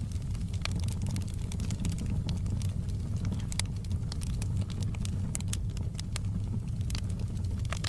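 Wood fire burning in a fireplace, crackling: many scattered sharp pops and snaps over a steady low rumble.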